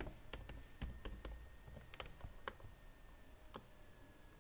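Faint computer-keyboard typing: a quick run of key taps over the first second and a half, then a few separate clicks.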